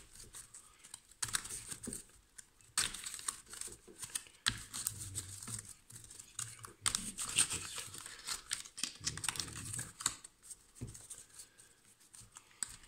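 A deck of Angeli del Cuore oracle cards being shuffled by hand, overhand style: cards sliding and rustling against each other in runs a second or two long with brief pauses between.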